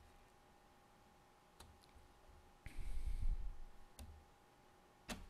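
Computer mouse clicking a few times, sharp single clicks spread over the seconds, with one short muffled rumbling noise about three seconds in that is louder than the clicks.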